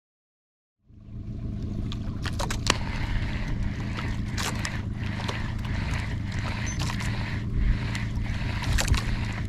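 Boat engine running steadily, with water rushing along the hull and a few sharp knocks. It cuts in suddenly about a second in.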